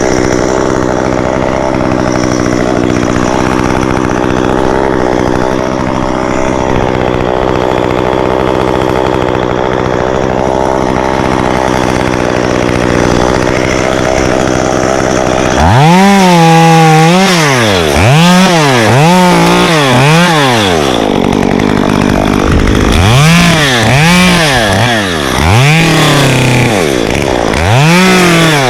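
Stihl chainsaw engine running steadily at high speed. From about halfway through it is revved up and let back down to idle over and over, in quick series of rising and falling blips.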